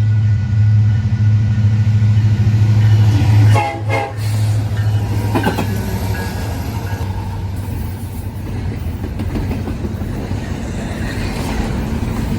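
Train running with a strong, steady low drone, a few knocks about four seconds in, then a rougher rumbling noise.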